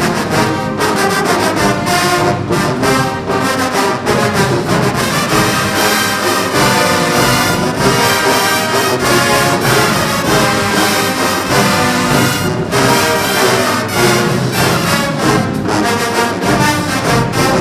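Marching band brass playing loudly and continuously.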